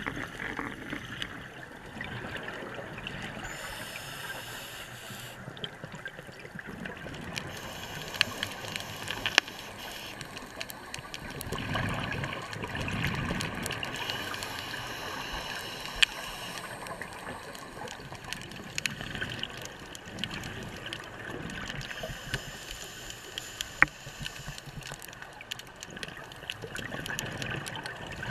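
Underwater sound heard through a camera housing: a scuba diver's exhaled bubbles gurgling, swelling once near the middle, over a steady hiss with scattered sharp clicks.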